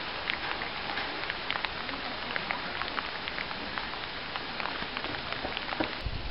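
Rain pattering on hard surfaces: a steady hiss dotted with many small irregular ticks of drops. Near the end a low rumble of wind buffeting the microphone cuts in.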